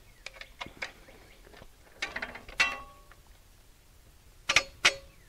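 Steel bolts and nuts clinking against the galvanized steel frame rail and cross bunk of a Norwood sawmill log deck as the holes are lined up and the first bolt is fitted. Scattered light clicks, a cluster of clinks about two seconds in with a brief metallic ring, and two sharp clinks near the end.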